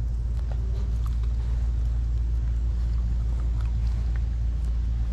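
A steady low rumble with a few faint ticks over it.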